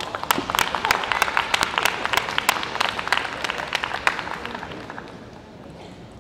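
Arena crowd applauding a point just won: a dense patter of hand claps that thins out and fades away about five seconds in.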